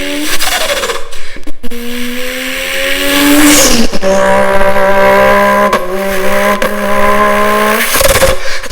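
A person imitating a Nissan Skyline GT-R R34's engine and turbo flutter with the mouth: held, buzzing engine-like tones that climb slowly in pitch, broken by short hissing, fluttering bursts about midway and near the end.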